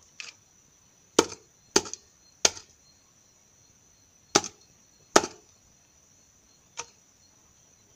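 A 1-inch PVC pipe elbow striking a scorpion against the ground: about seven sharp knocks at irregular intervals. The loudest come in a quick run of three in the first two and a half seconds, then two more around four to five seconds in, and a lighter one near the end.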